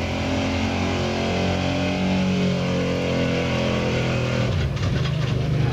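Pickup truck engine running hard at high revs, pulling a weight-transfer sled. The revs dip briefly about four and a half seconds in, then pick back up.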